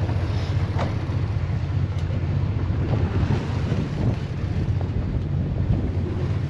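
Small fishing boat's engine running steadily with a low hum, under wind buffeting the microphone and water noise.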